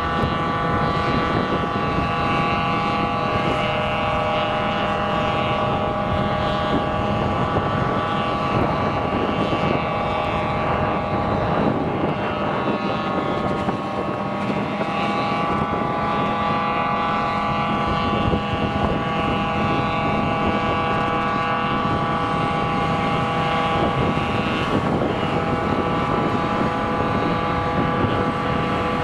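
Heavy diesel farm machinery running steadily under load, a rumble with a whine of several steady tones above it; the pitch shifts briefly about twelve seconds in and again near twenty-five seconds.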